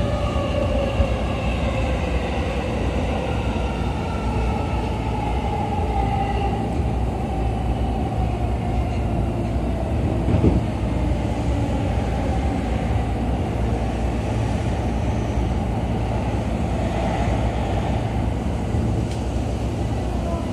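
JR East E233-series electric train heard from inside the passenger car: the traction motors' whine falls steadily in pitch over the first several seconds as the train slows, over a constant rumble of wheels on rails. A single short knock about halfway through.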